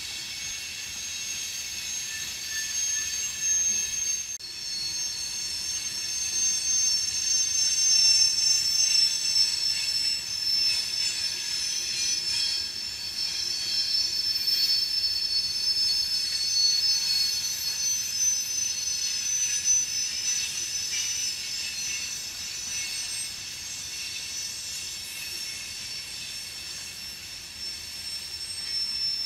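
Steel wheels of a loaded rock train's freight cars squealing as they round a curve: several high-pitched squeal tones that waver and swell, with a brief dropout about four seconds in.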